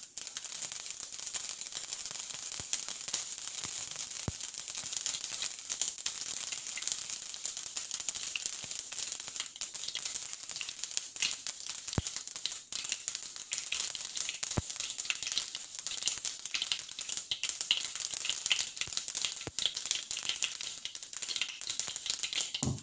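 Mustard seeds spluttering in hot cooking oil in a frying pan: a steady, dense sizzle of many small pops and crackles, with a few sharper pops now and then.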